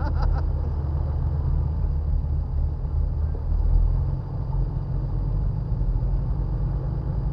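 Jeep Wrangler engine running steadily at low revs, a low rumble heard from on top of the hood.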